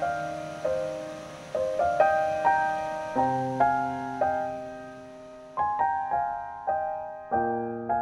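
Soft piano music: a slow tune of single notes and chords, each struck and left ringing as it fades, with a longer held note about halfway through.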